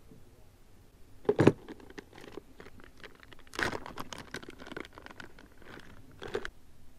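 Plastic bag of soft-plastic lures rustling and crinkling as baits are picked out by hand. A sharp knock about a second and a half in is the loudest sound, with a longer spell of crinkling and clicks in the middle.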